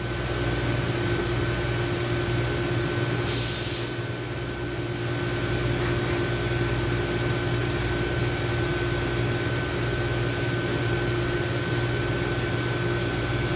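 A steady mechanical hum with a constant whine from running shop equipment, and one short spray-like hiss about three seconds in.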